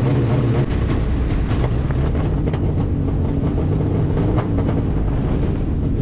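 Steady low rumble of noise inside a small light aircraft's cockpit in flight, with faint ticking through it.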